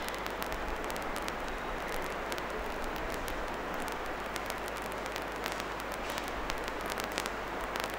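Steady hiss of background noise with many short, faint clicks scattered through it.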